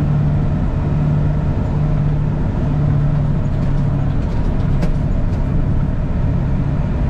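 Grain semi truck's diesel engine running steadily at idle, heard from inside the cab with a constant low hum.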